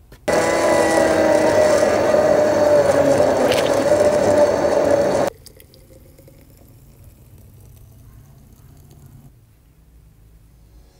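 An electric blender's motor runs loudly with a steady whine for about five seconds, blending frozen apple and banana, and then cuts off. After it, thick smoothie pours quietly into a glass jar.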